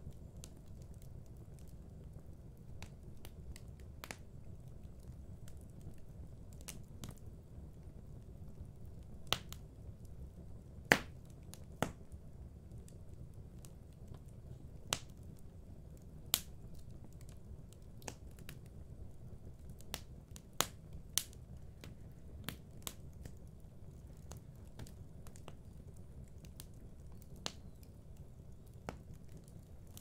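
Fire crackling in a fireplace: irregular sharp pops and snaps over a steady low rumble of the flames, the loudest pop about eleven seconds in.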